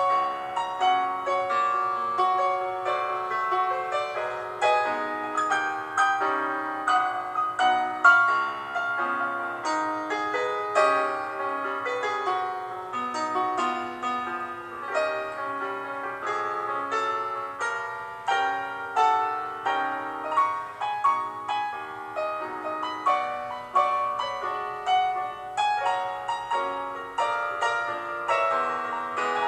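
Background piano music, a continuous run of struck notes.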